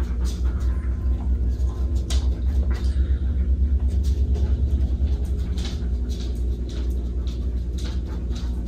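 A steady low rumble, with scattered light clicks of an Alaskan malamute puppy's claws on a wooden floor as it walks about.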